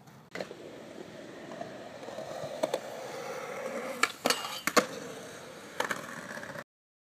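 Skateboard wheels rolling on concrete, growing louder as the board comes closer, with sharp clacks of the board about four to five seconds in as the skater does a trick at a metal rail. The sound starts and stops abruptly.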